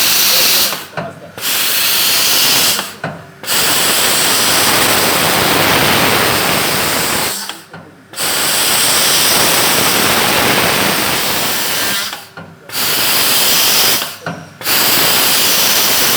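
CNC door-hinge machine working through its cycles: a loud, even hissing noise runs for several seconds at a time and cuts off briefly four times, about a second, three seconds, eight seconds and twelve seconds in, each time starting up again.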